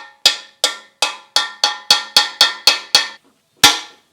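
A hammer striking metal in a quick run of about ten ringing blows that speed up, then after a short pause two more heavy blows.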